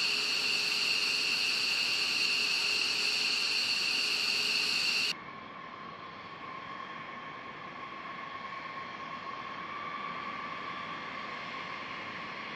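Loud, steady jet-engine hiss with two high, steady whines, cut off abruptly about five seconds in. Then a B-52 Stratofortress's eight turbofan engines whine more quietly as it taxis, their tone rising slightly.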